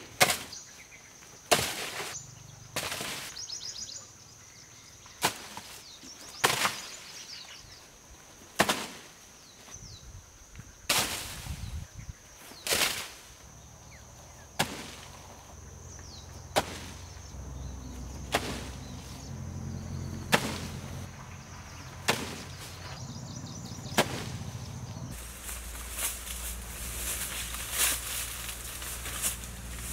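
A long series of sharp knocks, one every one to two seconds, from a thrown bamboo spear striking banana trunks, over a steady high insect drone. Near the end the drone stops and rustling in dry bamboo leaves takes over.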